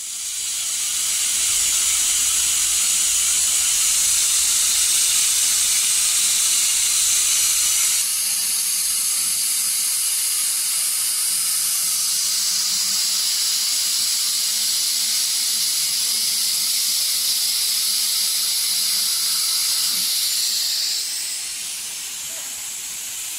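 CO2 laser cutter working on wood: a steady, loud hiss that shifts slightly about 8 seconds in and turns quieter near the end.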